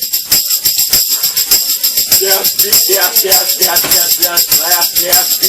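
Tambourine shaken in a fast, steady rhythm, its jingles ringing. From about two seconds in, a voice sings over it.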